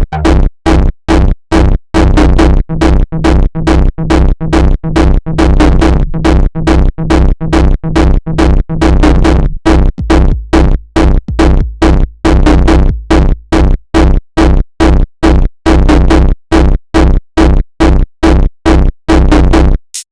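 Jumpstyle electronic dance beat: a drum-machine kick on every beat, about two and a half a second, over strong bass and synth. It stops abruptly just before the end.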